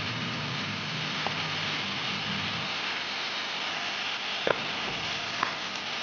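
Meat sizzling steadily in a hot pan, with a few light clicks.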